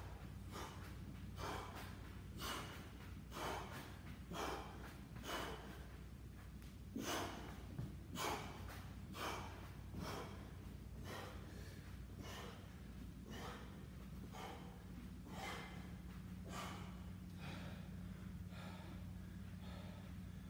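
A man breathing hard from exertion during a bodyweight exercise, in sharp, noisy breaths about once a second that grow fainter near the end. A steady low hum runs underneath.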